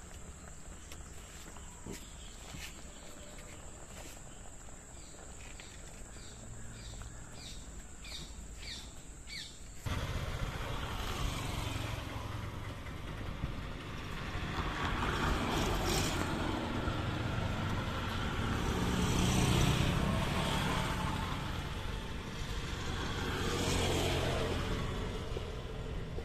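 Outdoor background sound: short bird chirps over a steady high-pitched whine, then from about ten seconds in a louder outdoor noise with vehicles passing, swelling and fading about three times.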